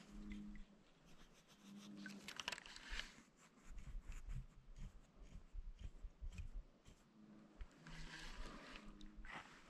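Faint sounds from a kayak: water trickling and lapping at the hull, with scattered light clicks and knocks from handling a baitcasting rod and reel.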